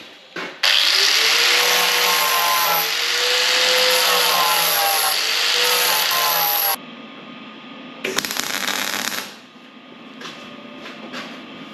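Electric power tool running on metal for about six seconds, with a whine that shifts in pitch, then a shorter second run about a second later.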